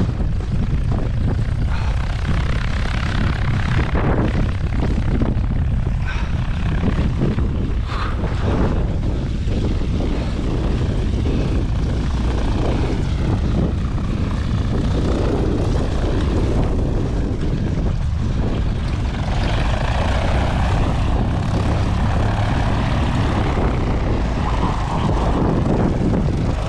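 Zenith CH-200 light aircraft's piston engine and propeller running steadily at low power as the plane taxis on skis.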